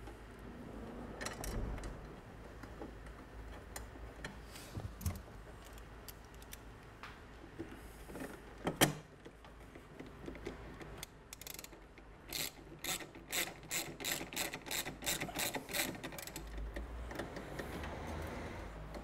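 Socket ratchet wrench clicking as bolts are run down into a steel bracket, with a steady run of about three clicks a second in the second half. A single sharp knock near the middle is the loudest sound.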